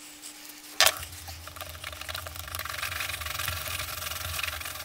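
A sharp knock about a second in, then a stick scraping steadily round on sandpaper as two-part epoxy is mixed on it.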